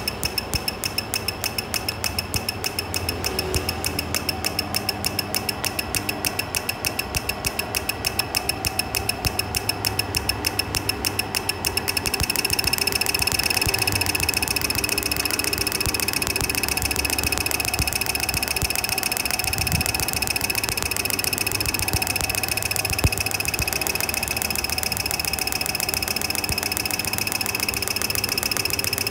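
A car engine running with a rapid, regular ticking and a steady high whine. About twelve seconds in, the pattern becomes faster and denser, as if the engine speed rose.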